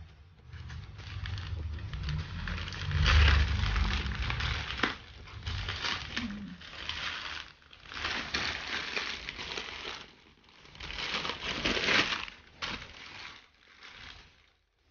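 Plastic packaging crinkling and rustling as a green poly mailer is torn open by hand and a clear plastic bag inside is handled, in irregular bursts with short pauses.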